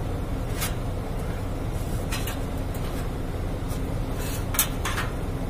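Steady low hum with a few short rustles and clicks as a digital temperature controller and its sheet-metal control box are handled, the sharpest click about four and a half seconds in.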